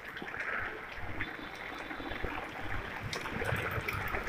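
Steady rain falling on a wet paved street, a continuous even hiss of water.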